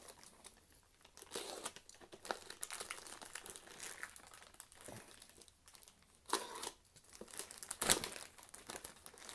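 Plastic poly mailer crinkling and tearing as it is cut open with a utility knife and a cardboard box is pulled out of it: irregular rustling with scattered clicks and a louder crackle about eight seconds in.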